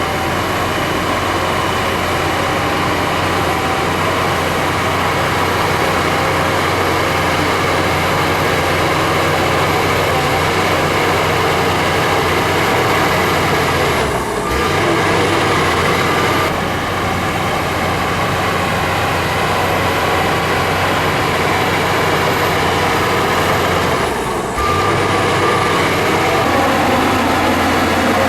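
Heavy diesel earthmoving machinery running steadily under load while pushing and moving soil, with two brief dips, about halfway and near the end.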